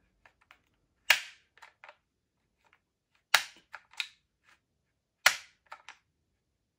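The six-position crane stock of a Cyma Platinum 097B airsoft replica being slid between positions: three sharp clacks about two seconds apart, each followed by a few lighter clicks as the stock latch catches.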